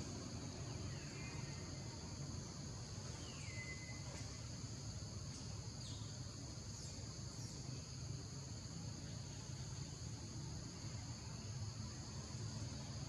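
A steady, high-pitched chorus of forest insects. A few short falling bird whistles come through in the first half.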